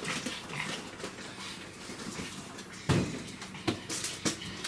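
A few sharp knocks or clicks over quiet room tone, the loudest about three seconds in and two smaller ones soon after.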